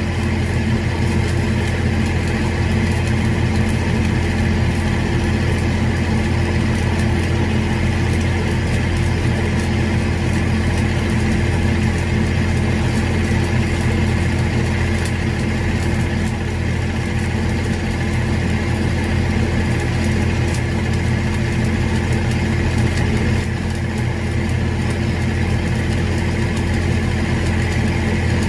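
Shielded metal arc (stick) welding with a 7018 rod on a 4-inch pipe: a steady arc crackle. Under it runs the constant drone of an engine.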